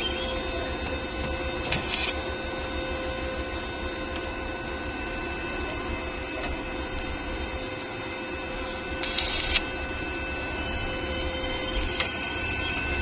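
A machine running with a steady mechanical whirr and a constant hum. Two short bursts of hiss come about 2 seconds in and again about 9 seconds in.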